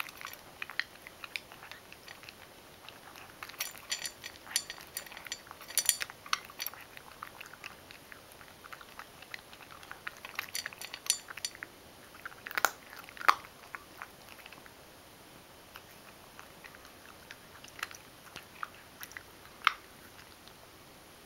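Ragdoll cat crunching dry kibble from a stainless steel bowl: bursts of sharp crunches with quieter pauses between, the loudest crunches a little past the middle.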